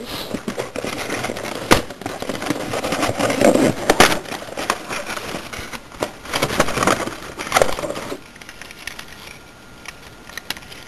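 Clear plastic packaging crackling and crinkling as it is pulled open and handled, with several sharp clicks. After about eight seconds it goes much quieter, leaving a few faint clicks.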